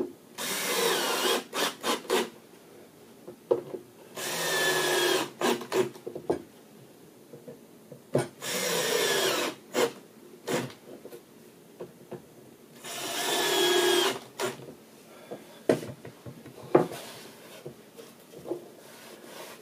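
Cordless drill-driver driving four screws into a glued board joint, each a burst of motor whine of about a second and a half whose pitch wavers as the screw bites and seats. Short clicks and knocks come between the screws.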